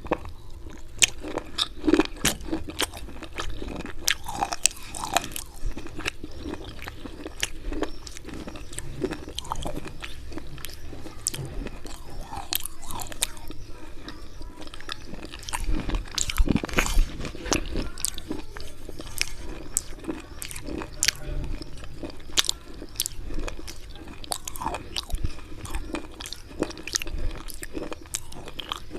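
Slate pencils coated in white khadi (chalk clay) paste being bitten and chewed close up. Sharp, irregular crunches and cracks come several times a second, with grinding between them.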